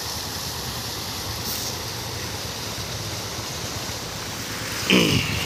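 Steady rushing of water from a lit fountain pool, with a low hum underneath. Near the end a man's voice makes a short sound that falls in pitch.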